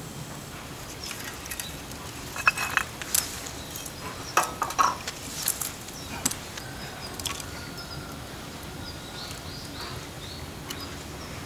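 Bamboo firewood crackling and popping in a small camping wood stove: a cluster of sharp cracks from about two to six seconds in, over a steady background.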